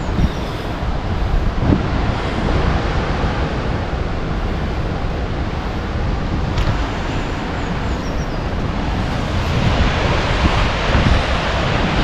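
Wind buffeting the microphone: a steady rushing noise with a churning low rumble, growing a little stronger near the end.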